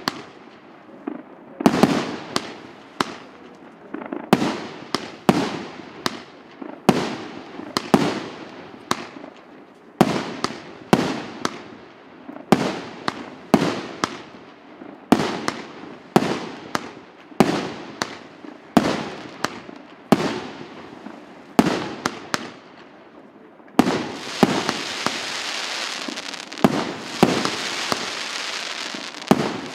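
An 88-shot, 1.5-inch fireworks cake firing shot after shot, about one or two sharp bangs a second, each trailing off in a fading hiss. About 24 seconds in, a dense continuous crackling hiss starts up under the bangs.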